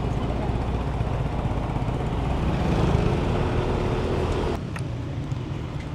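Vehicle engine running under way with road and wind noise; the engine note grows stronger, then drops off sharply a little past four and a half seconds in, as when the throttle is eased.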